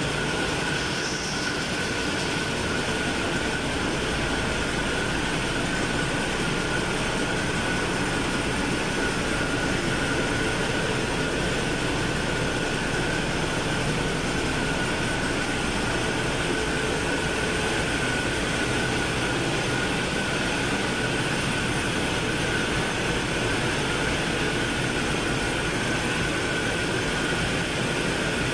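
Steady, loud machinery noise of a ship's engine room with its diesel engines and auxiliary machinery running, carrying a constant high-pitched whine over dense mechanical noise.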